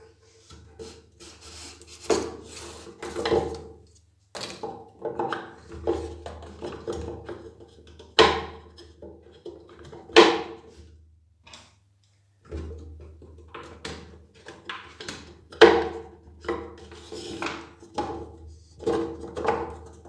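Handling noise from a pressure washer's metal pump and induction motor assembly being shifted about in a wooden box: irregular knocks, clunks and scrapes of metal against wood, a few of them sharp and loud.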